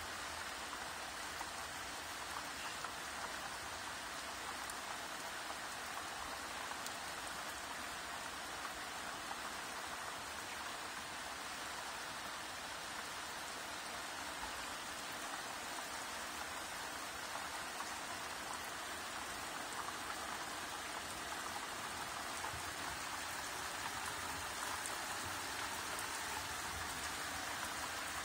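Steady rain falling: an even hiss of many small drops that keeps the same level throughout.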